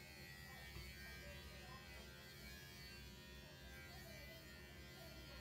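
Electric hair clippers running with a faint steady buzz as they shave a cat's fur short.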